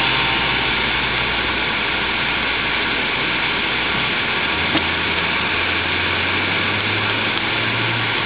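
Steady road noise inside a moving car on a snowy road: a continuous hiss with a low engine hum underneath, the hum shifting in pitch about four seconds in.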